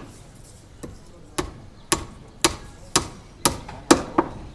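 Repeated sharp blows of a hand tool striking at construction work, about two a second, the last two coming closer together.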